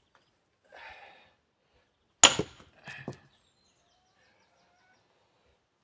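A tool strikes a block of oak firewood being split: one sharp, loud hit a little over two seconds in, followed by a couple of lighter knocks and cracks of the wood about a second later.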